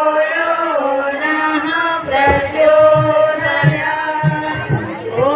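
Devotional chanting sung in long held, gliding notes with musical accompaniment; a low drum beat comes in about halfway through.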